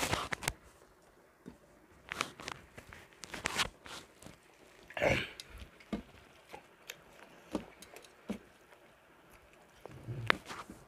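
People eating rice and egg curry by hand from steel plates, fast. Irregular smacking, chewing and small clicks and knocks, with a longer noisy burst about five seconds in.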